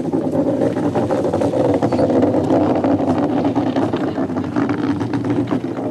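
Iceboat runners rumbling over the ice at speed: a loud, steady rumble with a constant scatter of small clicks and crackles.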